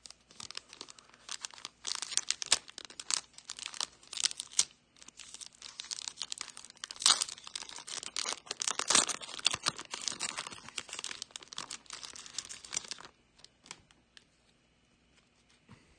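Foil wrapper of a 2018 Panini Select football card pack being torn open and crinkled: a dense run of crackling that stops about thirteen seconds in.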